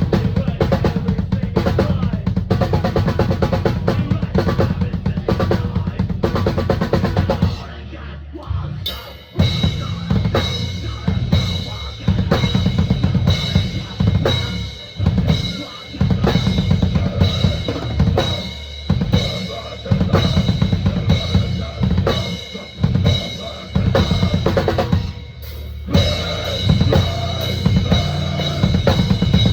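Drum kit played hard and fast in a deathcore style: rapid double bass drum under snare and cymbal hits. It eases off briefly about eight seconds in, then comes back in choppy stop-start patterns with short breaks.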